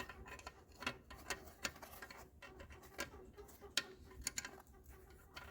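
Faint, irregular light clicks and taps of small metal engine parts being handled and moved.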